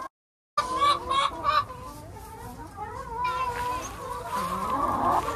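A flock of hens clucking, many overlapping calls in a continuous chorus, starting after a brief gap, with a few louder clucks about a second in.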